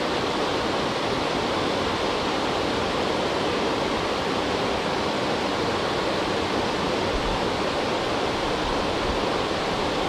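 Small waterfall spilling over a broad, low weir into a rocky river, with a steady, even rush of falling water.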